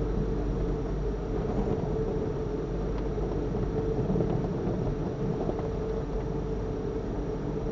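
Steady low rumble and hum of a car idling, heard from inside its cabin as it creeps forward at walking pace, with a constant mid-pitched tone running under it.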